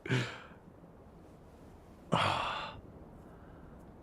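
Two breathy sighs from a person: a short one at the start and a longer, louder one about two seconds in.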